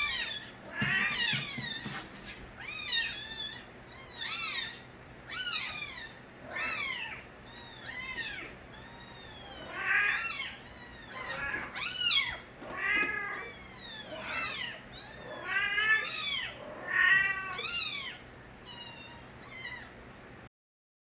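Several kittens meowing loudly and over and over, high-pitched arching cries that often overlap, ending in a sudden cut about twenty seconds in.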